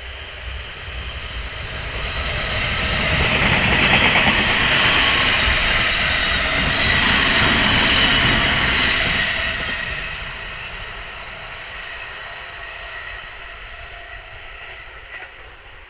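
209-series electric multiple-unit train passing on the rails. The sound builds over the first few seconds, is loudest from about four to nine seconds in, then fades away.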